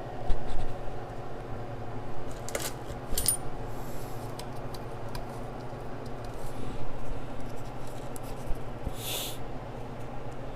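Light metallic clinks and knocks of tools and small metal parts being handled, a few sharp, over a steady low hum, with a short hiss about nine seconds in.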